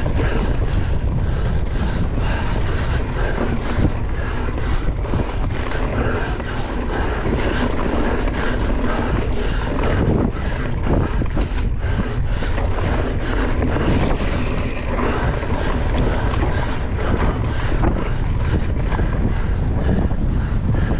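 Wind buffeting the microphone of a rider-mounted camera on a mountain bike moving at race pace, mixed with tyre noise and the bike rattling and knocking over rough ground.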